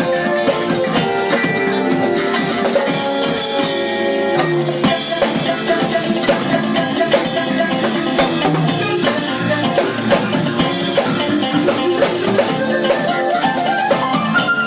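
Live jazz-fusion quartet playing: electric guitar, electric bass, keyboards and drum kit together at a steady level.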